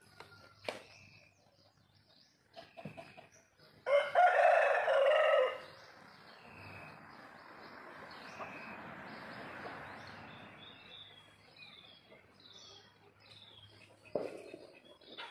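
A rooster crows once, loud, about four seconds in. Later a small bird chirps in a quick series of short high notes.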